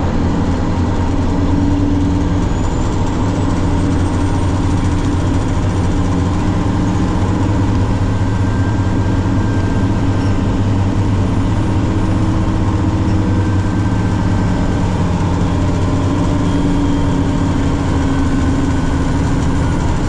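Heavy truck's engine running steadily under load, heard from inside the cab while driving.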